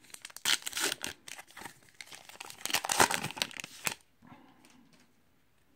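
2018 Topps Heritage High Number baseball card pack wrapper crinkling and tearing as it is ripped open and the cards are slid out; the crinkling stops about four seconds in.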